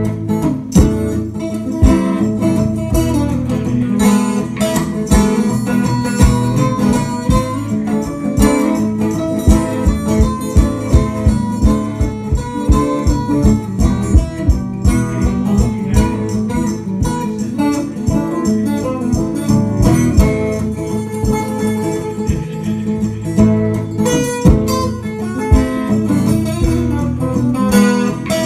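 A band playing guitar-led music with a steady beat.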